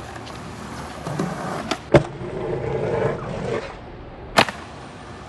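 Skateboard rolling on wet pavement, wheels hissing, with sharp clacks of the board hitting the ground: two close together about two seconds in, the second the loudest, and another about four and a half seconds in.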